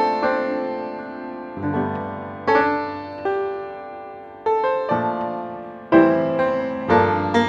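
Background piano music: chords struck and left to ring and fade, a new one every second or so.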